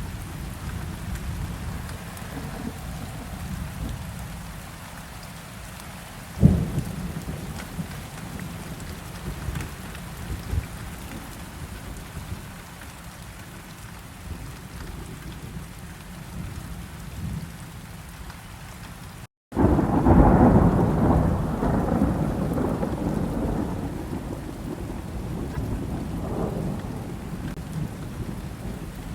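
Steady rain with thunder: a sharp crack about six seconds in, and, after a split-second dropout to silence about two-thirds of the way through, a loud long rumble that fades over several seconds.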